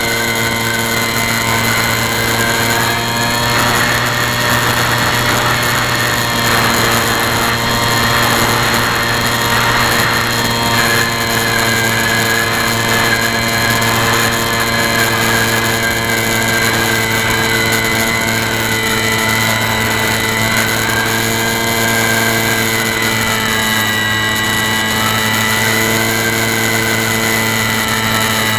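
Radio-controlled model airplane's motor and propeller running steadily, heard from a camera on board the plane: a steady whine whose upper tone wavers slightly in pitch, over a constant hiss.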